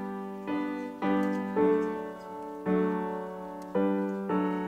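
Background music: slow piano notes, each struck and left to fade, about one every half second to a second.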